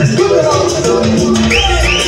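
Cumbia music played loud over a sonidero sound system, with a run of short rising swooping tones near the end.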